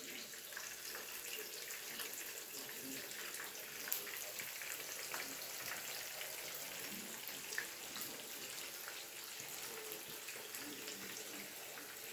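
Hot cooking oil sizzling steadily, with scattered small crackles and pops.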